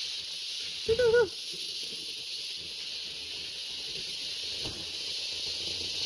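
Steady high-pitched hiss of outdoor background noise, with one short, wavering call about a second in.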